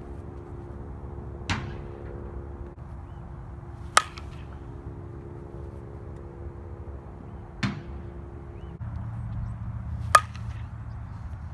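Softball bat hitting pitched softballs four times, about two and a half seconds apart, the second and fourth contacts loud and sharp with a short ring. A steady low hum runs underneath.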